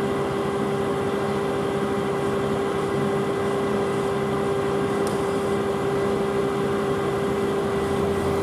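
Double-decker bus idling at a stop: a steady engine drone with a constant whining hum over it.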